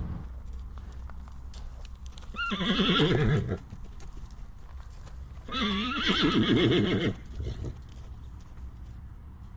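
Horse whinnying twice, each call about a second long with a quavering, wavering pitch, with light clicking like hooves clopping beneath.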